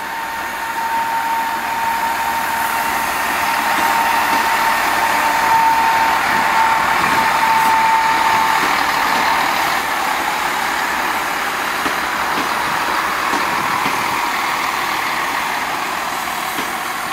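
A diesel multiple unit passes slowly at close range, its underfloor diesel engines running. The sound builds to a peak midway and then eases as the train moves off. A steady high whine sounds through the first half and fades away.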